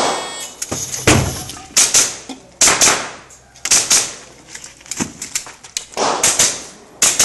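A shot timer's start beep, then a string of rapid handgun shots, roughly one every half second to second, some fired in quick pairs. This is a competitor firing a practical-shooting (IPSC) course of fire.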